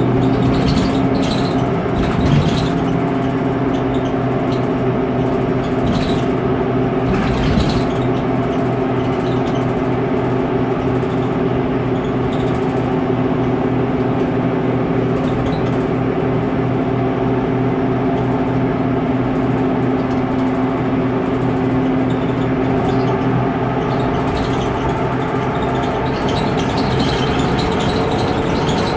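Rear-cabin sound of a Mercedes-Benz Conecto NGT city bus under way: its turbocharged OM 936 G natural-gas (CNG) engine runs steadily with a low hum. A few short knocks or rattles come in the first eight seconds.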